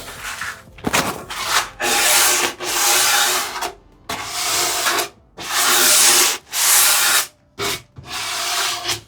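A hand tool worked across a wooden drawer in about eight long strokes, each under a second, with short pauses between them. This is the drawer being cleaned up after glue-up.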